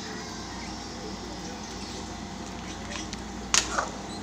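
A ladle stirring a coconut-milk chicken curry in a metal pot, with one sharp click about three and a half seconds in.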